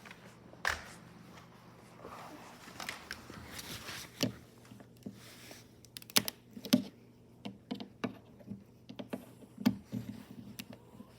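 Scattered light clicks and knocks of something being handled, a few louder around the middle and near the end. No vacuum motor is running.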